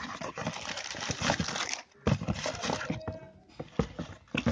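Tissue paper and a cardboard shoe box rustling and crinkling as a flip-flop slipper is unwrapped and lifted out, with a short pause about two seconds in.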